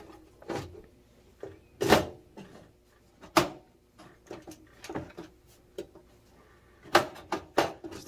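Metal side panel of an HP Envy desktop PC case being fitted onto the case rails and pulled back off: a series of sharp clacks and knocks, the loudest about two and three and a half seconds in, then a quick run of clacks near the end. The panel is catching and not sliding into place.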